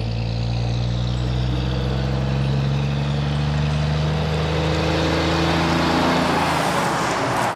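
Diesel engine of a semi-trailer truck running steadily as the truck approaches and drives past, with tyre and road noise swelling as it draws near.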